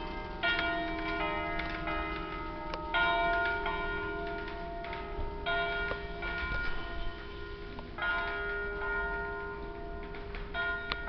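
Five church bells in an E-flat major peal, cast by Michele Comerio in 1841, ringing a full swinging peal. Loud strokes come about every two and a half seconds, with the bells' hum ringing on between them.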